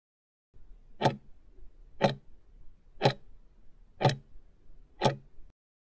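Countdown timer's clock-tick sound effect: five sharp ticks, one a second.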